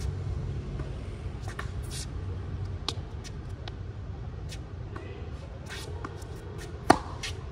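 Tennis on an outdoor hard court: light scattered scuffs and taps of shoes and a distant ball under a low steady traffic hum, then one sharp tennis-ball impact about seven seconds in, the loudest sound.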